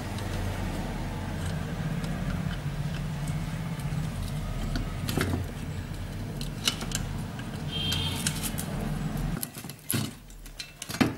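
Light metallic clicks and jingles of small parts as the heating element's terminal on an electric iron's soleplate is worked loose by hand, over a steady low background hum that cuts off suddenly about nine seconds in.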